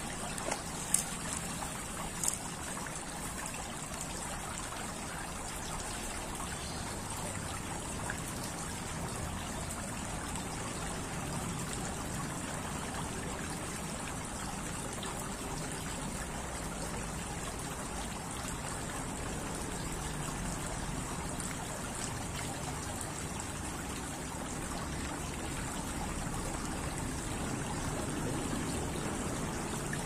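Water trickling steadily down the tiers of a stone garden fountain into its basin. Two sharp clicks about one and two seconds in.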